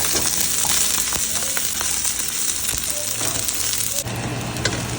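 Mushrooms sizzling as they fry in oil in a kadhai, with a few light clicks of stirring. About four seconds in the sizzle turns softer, over a steady low hum.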